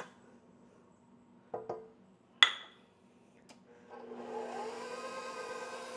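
A few short knocks and one sharp metal clink against the steel bowl, then about four seconds in a KitchenAid stand mixer's motor starts and settles into a steady hum, rising slightly in pitch as it comes up to speed, beating butter at low speed.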